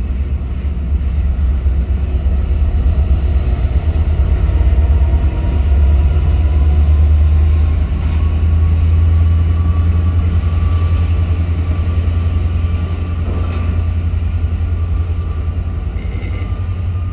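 Double-stack container freight train rolling past at a crossing: a steady, heavy low rumble of the railcars going by, with a faint thin tone drifting slowly upward in pitch.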